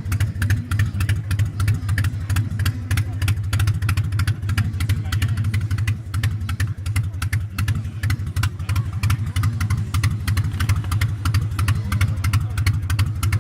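Harley-Davidson V-twin motorcycle engine idling steadily, its exhaust pulsing in a fast, even beat.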